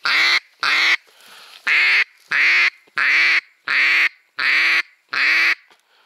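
Duck quacking loudly: about eight short, evenly spaced quacks, each falling slightly in pitch, with a short pause after the first two about a second in.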